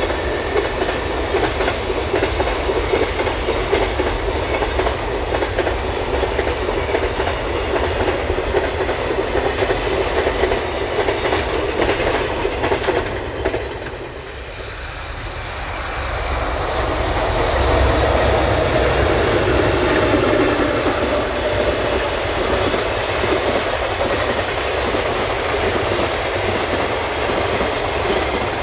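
Container flatcars of a freight train rolling past with a steady clatter of wheels on the rails. About halfway through, the sound dips and swells back up as it gives way to another passing freight train.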